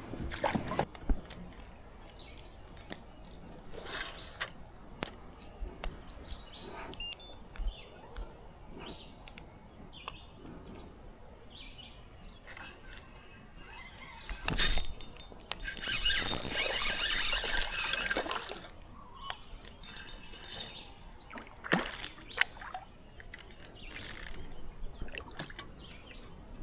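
Small knocks and clicks from gear being handled on a fishing kayak, with a burst of water splashing near the middle.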